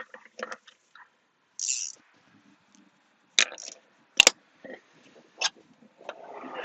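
Scattered metallic clinks and knocks from hand tools and car parts being handled, with one sharp knock standing out about four seconds in, a short hiss about a second and a half in, and a rustling swell near the end.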